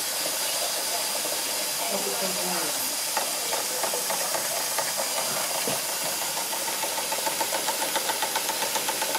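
DOLL toy steam engine with an electric-heated boiler running: a steady steam hiss with quick, even chuffs from the cylinder exhaust, which become a distinct rapid beat in the second half.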